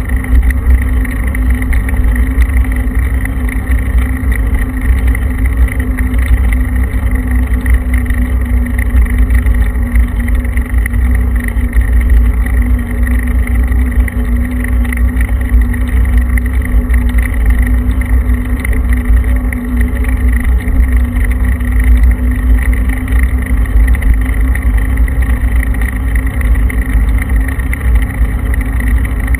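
Steady drone of a vehicle travelling at road speed, picked up by a camera mounted on it, with a strong low rumble and no change in pace.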